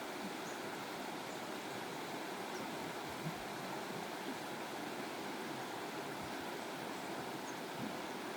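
Steady rush of running water, like a stream or small cascade flowing, with no change in level.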